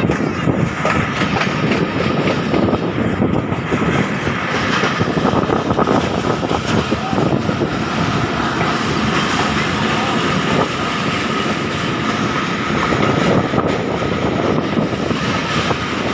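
Passenger train running along the track: a loud, steady rumble and rattle of the coach wheels on the rails, with a steady high whine over it.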